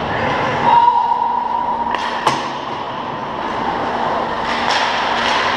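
Ice hockey play on an indoor rink: skates scraping and carving on the ice with sharp clicks of sticks on the puck, the loudest crack about two seconds in.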